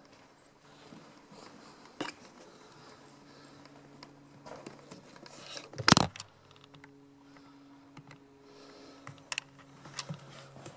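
Footsteps and light clicks and crunches over debris on a carpeted floor, with one sharp, loud knock about halfway through, over a faint steady low hum.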